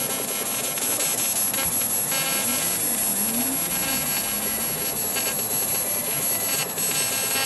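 Steady buzzing noise of electric arc welding, laying weld into a bicycle frame's bottom bracket shell, mixed with electronic background music.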